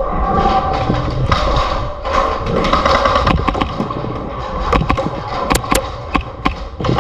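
Scuffing and rustling movement noise from an airsoft player on the move, with a few sharp cracks near the end.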